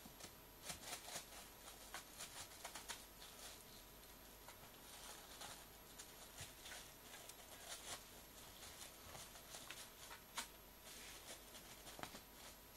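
Thin clear plastic wrapper crinkling and rustling as a kitten bats and pounces on it: faint, irregular crackles with a few sharper snaps.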